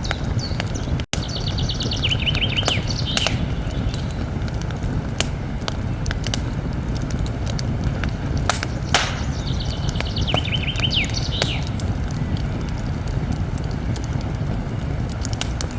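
Campfire crackling, with sharp pops scattered through it over a steady low rumble. A songbird trills twice, about a second in and again around ten seconds in. The sound cuts out for an instant just after the first second.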